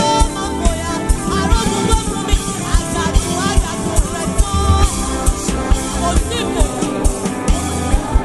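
Gospel band music with a steady, evenly spaced drum beat under a bending lead melody line.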